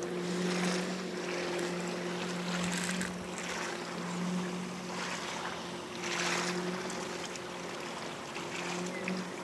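Boat motor running at a steady pitch, with irregular rushes of wind and water noise over it.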